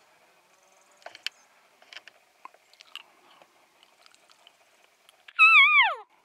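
Elk cow-style mew near the end: one loud, high call about half a second long that wavers and then slides down in pitch. A few faint clicks and rustles come before it.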